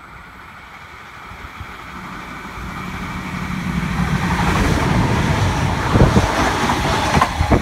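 NSW TrainLink Xplorer diesel railcar set running through the station without stopping. Its engine drone and rushing air grow steadily louder as it comes up and passes close by, with a few sharp clacks near the end.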